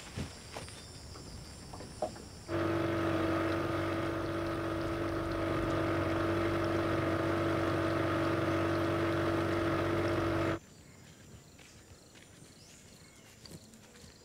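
Small boat's engine running steadily at one even pitch, starting abruptly about two seconds in and cutting off sharply after about eight seconds. Faint footsteps on a dirt path follow near the end.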